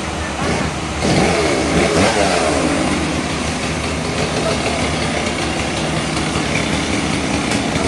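Engine running steadily, getting louder about a second in with a brief rise and fall in pitch.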